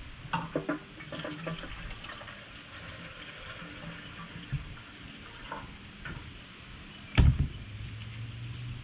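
Gasoline poured from a plastic jerry can's spout into a small, empty engine fuel tank: a steady trickling fill with a few clicks near the start as the spout is handled. About seven seconds in there is a loud thump as the can is set down on the pavement.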